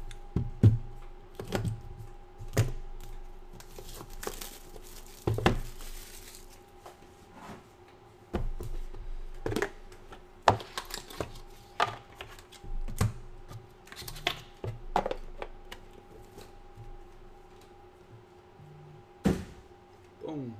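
Cellophane shrink wrap torn from a sealed trading-card box and crinkled, with a longer tearing hiss about four seconds in, amid repeated taps and knocks of the cardboard box and cards being handled on a tabletop. A faint steady hum sits beneath it.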